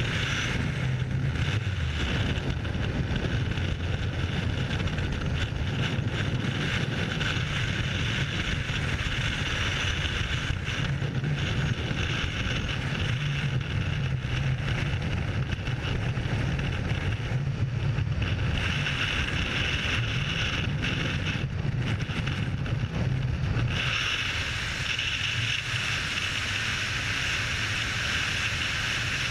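Freefall wind rushing over a skydiver's worn camera microphone: a steady, unbroken rush of wind noise. About 24 seconds in it turns hissier, with less low rumble.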